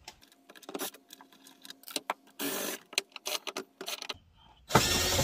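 Black+Decker 20V cordless drill/driver backing screws out of a TV stand leg, running in two short spurts, the second and louder one near the end. Scattered clicks and knocks of the bit and the plastic bracket fall between them.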